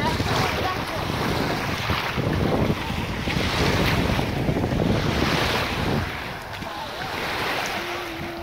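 Small waves breaking and washing up on the shore, swelling every second or two, with strong wind buffeting the microphone. A faint steady hum starts near the end.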